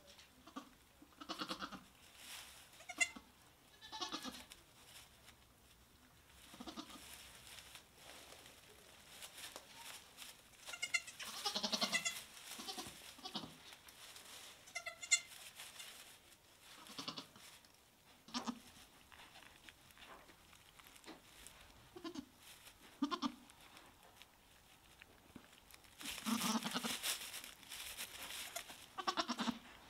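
Newborn Nigerian Dwarf goat kids and their doe bleating: repeated short calls, some high-pitched and some lower and softer, with a louder stretch near the end.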